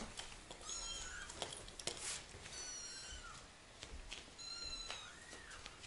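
Very young kittens mewing: several short, high-pitched mews a second or two apart.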